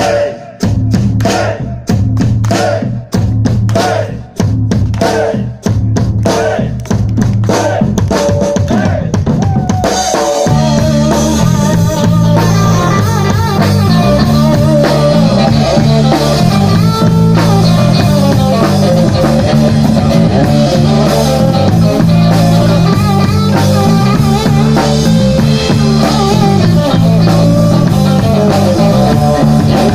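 Live rock band playing electric guitars and a drum kit through a PA. For the first ten seconds or so the band plays short stop-start hits about once a second, then breaks into continuous playing over a steady, repeating bass line.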